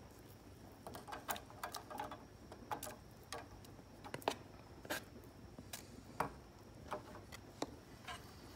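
Quiet, irregular clicks and taps, about one a second, as cubes of butter are pushed off a cutting board into a stainless steel saucepan of egg and citrus juice, the board and pan knocking lightly together.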